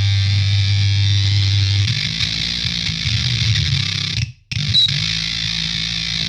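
Electric guitar played through a GameChanger Audio Plasma Coil distortion pedal set to two octaves down plus one octave up, giving a heavy fuzz tone with a deep sub-octave. One note is held for about two seconds, then the playing changes, and the sound cuts out for an instant about four seconds in.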